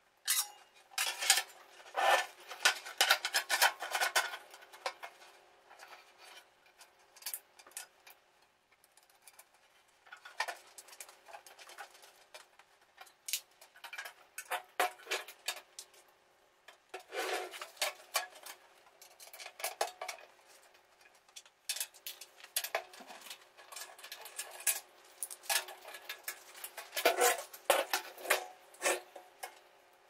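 Metallic clinks, taps and scrapes from hands handling a sheet-metal furnace blower housing and its squirrel-cage wheel during reassembly. The sounds come in clusters with short pauses between them.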